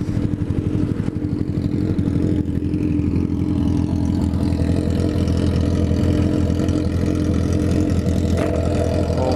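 Motorcycle engines idling steadily at a standstill: a BMW HP4 superbike's inline-four on a full GP exhaust, alongside a Yamaha YZF-R125 single.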